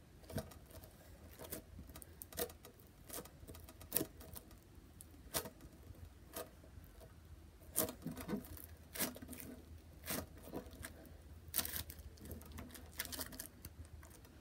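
Floam, slime packed with small foam beads, squeezed and pressed by hand: irregular sticky crackles and little pops, a few of them louder.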